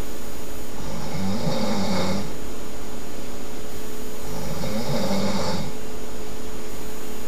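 A sleeping person snoring loudly: two long snores about three and a half seconds apart, each lasting well over a second.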